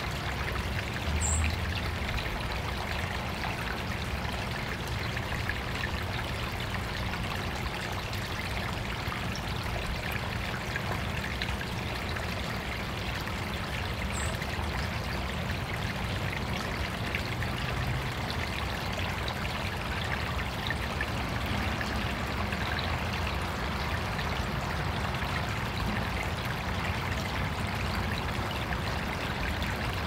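Water of an artificial backyard stream trickling and pouring steadily. Two brief high chirps stand out over it, one about a second in and one about halfway through.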